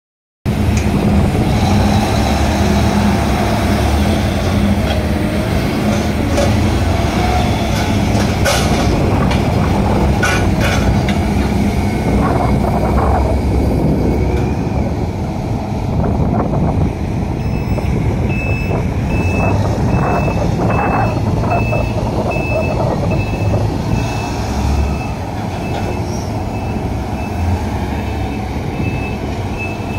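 Heavy diesel engines of a Komatsu HD465 rigid dump truck and PC1250 excavator running steadily, with a few knocks. About 18 seconds in, the dump truck's reversing alarm starts beeping about once a second as it backs into loading position.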